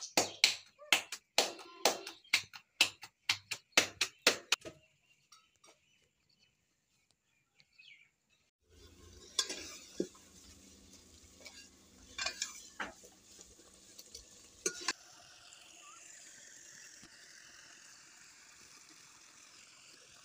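Hands slapping a ball of roti dough back and forth between the palms, about four sharp slaps a second. Later come a few clinks of a steel ladle against a steel cooking pot, and then a steady low hiss.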